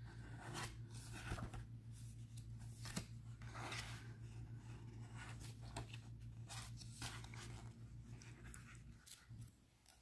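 Faint rustling and soft swishes of paper pages being turned and handled in a guidebook, over a low steady hum that cuts out near the end.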